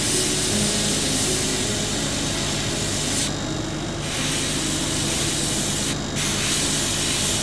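An airbrush spraying thinned black paint in fine lines: a steady air hiss. It cuts out for under a second a little over three seconds in, and briefly again around six seconds, as the trigger is released between passes.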